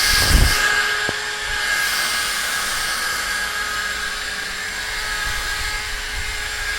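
Steady whirring of a small motor, with several high whining tones held level throughout and a low thump right at the start.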